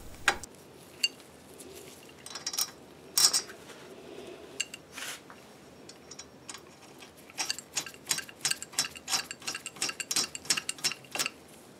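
Light metallic clinks as an aluminium puller sleeve is set over a threaded steel bolt, then a quick run of small clicks, about five a second, for several seconds past the middle as a nut is spun down the threaded rod.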